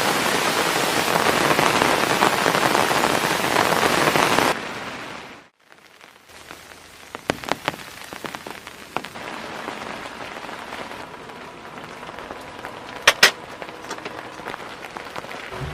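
Heavy rain falling in a steady hiss, which fades out about four and a half seconds in. Quieter rain follows, with scattered drops tapping sharply and two louder taps in quick succession near the end.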